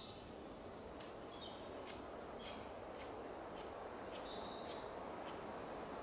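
Small birds chirping in short high notes over a steady rushing background, with sharp ticks about twice a second.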